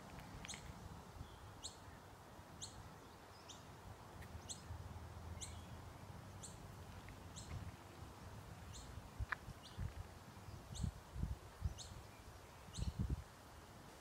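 A small bird calling over and over with short, high chirps, about one a second, against faint outdoor background noise. Low bumps of handling or wind on the phone's microphone come in near the end.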